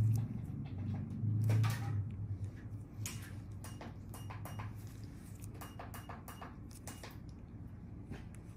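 Scattered light clicks and taps of a metal skin-extraction tool being handled, over a low steady hum that is loudest in the first two seconds.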